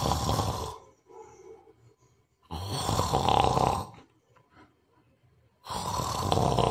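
A person snoring: three long snores about three seconds apart.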